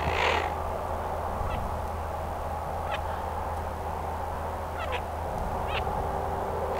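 Ducks calling in short, faint notes a few times over steady background noise, with a brief louder rush of noise right at the start.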